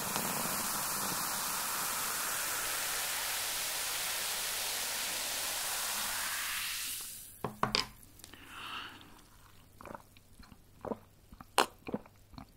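A steady hiss for about the first six seconds that fades out. Then close-miked eating sounds: sharp crisp bites and chewing with irregular clicks and crunches.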